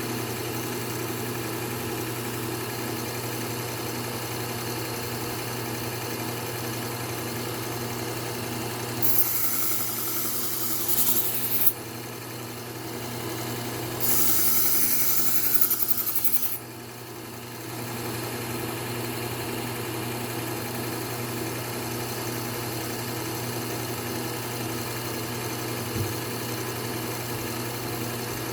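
Electric belt knife sharpener running with a steady motor hum, while a knife blade is ground against the moving abrasive belt in two passes of about two and a half seconds each, with a grinding hiss.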